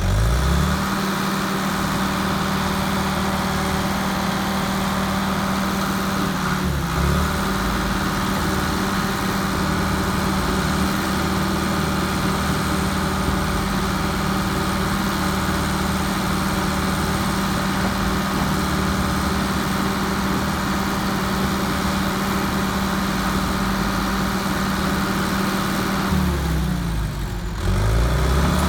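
John Deere 450J LGP crawler dozer's diesel engine running steadily. Its speed dips and recovers briefly about seven seconds in, and again near the end.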